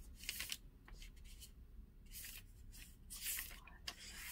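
Faint handling noises: a few short, scratchy rustles and scrapes.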